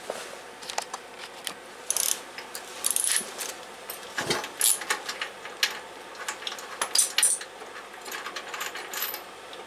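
Irregular metallic clicks, clinks and light knocks of hand tools and parts being handled on a cast-iron engine, a few louder clanks among them.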